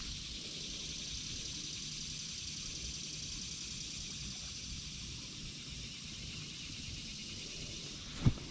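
Steady high-pitched chorus of insects, with low rumble underneath. Near the end a single sharp knock, the loudest sound, as a hand and sleeve bump the camera.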